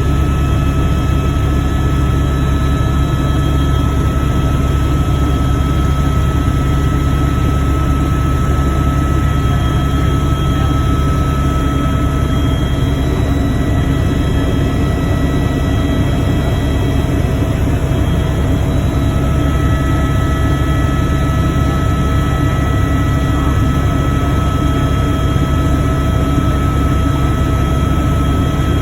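Helicopter running steadily: a loud, even low drone of engine and rotor with a steady high whine over it.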